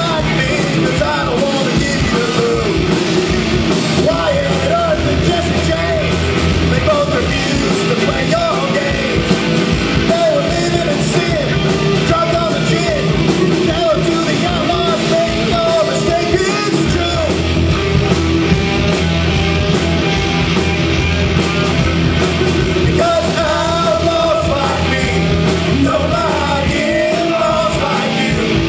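Live rock band playing loudly: drums and guitars with a singer's voice over them, without pause.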